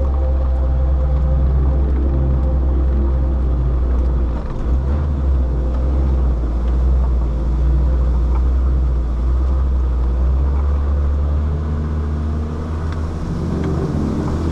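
Land Rover Defender 130's engine running steadily under load as it climbs a steep gravel pass, a loud low drone that dips briefly about four seconds in.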